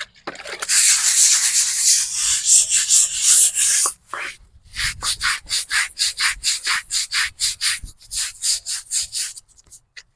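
Stiff brush scrubbing a stone headstone: a few seconds of continuous fast scrubbing, then, after a short pause, quick back-and-forth strokes at about four a second.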